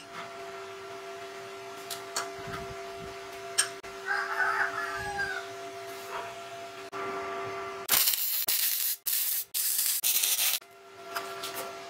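Arc welding crackles for about two and a half seconds near the end, with a few short breaks, as a washer is tacked onto the end of a steel tube. Earlier, a rooster crows once in the background over a steady hum and a few light metal clicks.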